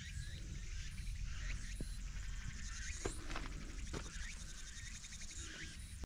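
A few scattered footsteps of a hiker on a rocky mountain trail, over a steady low rumble of wind on the microphone. A rapid, high trill sounds faintly in the background from about halfway through.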